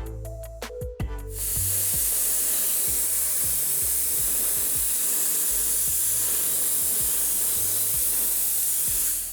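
Steady spray hiss starting about a second and a half in and cutting off sharply near the end, with background music underneath.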